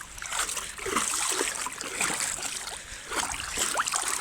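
Sea water splashing and trickling in short irregular bursts as a child swims, kicking and paddling.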